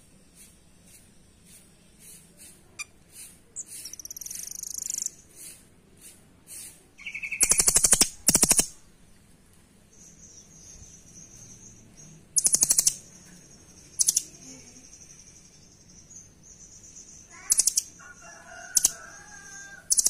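Caged rambatan doraemon (blue nuthatch) fluttering its wings in several loud, short bursts, with light ticking and short high calls. A long high, thin note is held at one pitch through the second half.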